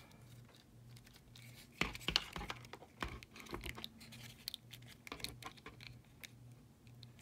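Fingers handling and posing a vinyl S.H. MonsterArts Godzilla 1962 figure: faint rubbing and scattered light clicks and scrapes, the loudest about two seconds in.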